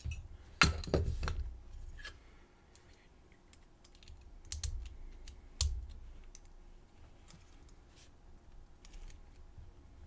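Metal padlock parts and small tools being handled on a bench during disassembly: a quick cluster of loud clacks about a second in, then scattered single clicks and clinks.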